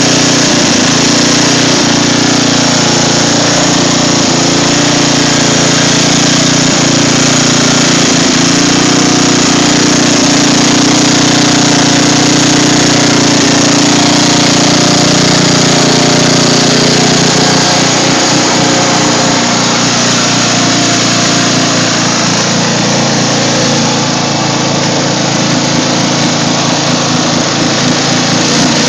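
Riding lawn mower's engine running steadily and loudly as the tractor drives through mud and shallow water, easing slightly about two-thirds of the way through.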